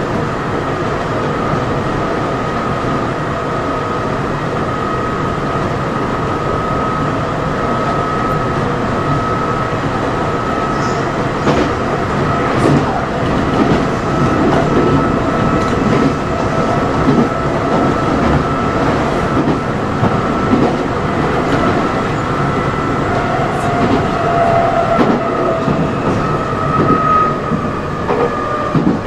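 Nankai 6000 series resistance-controlled electric train running, heard from its motored lead car: the Mitsubishi traction motors and running gear hum with a steady high whine, and the wheels click over rail joints, more clearly from about halfway through.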